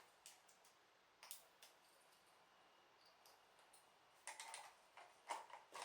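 Faint scattered clicks and taps of plastic LEGO pieces being handled and pressed together, with a denser run of clicks from about four seconds in.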